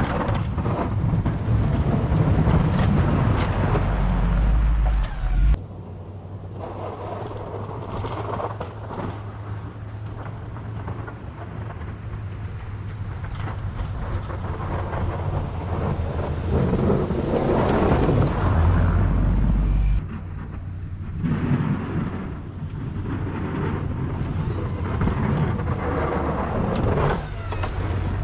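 A vehicle engine running with a steady low hum under a noisy, rough rumble that swells and fades; the sound drops abruptly about five and a half seconds in and again about twenty seconds in.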